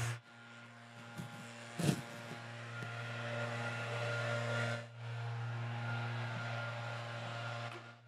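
Steady hum of a motor-driven floor-cleaning machine running, with a short louder sound about two seconds in.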